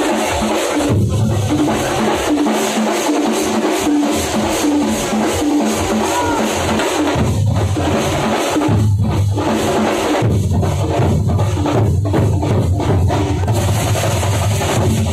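Thampola percussion troupe drumming loudly in a fast, steady beat, with deep bass-drum strokes joining about a second in and again from about seven seconds on.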